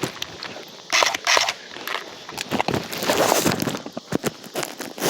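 A rifle sling and gear being handled close to the body-worn microphone: fabric rustling and scraping with sharp plastic and metal clicks, louder rustles about a second in and a loud scrape near the end.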